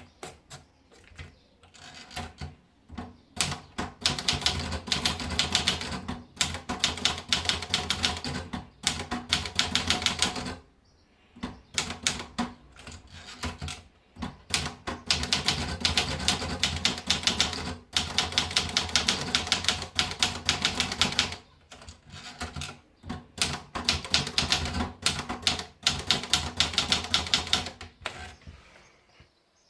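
Olivetti Lettera 35 manual portable typewriter being typed on. A few scattered keystrokes at first, then fast runs of key strikes broken by short pauses every several seconds.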